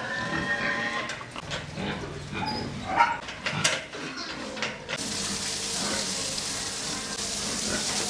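Pigs grunting and calling in a pen, with several sharp knocks. About five seconds in, a steady hiss sets in.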